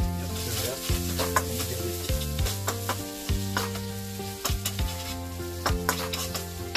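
Chopped onions frying in oil in a wok with a steady sizzle, while a spatula stirs them with repeated clicks and scrapes against the pan.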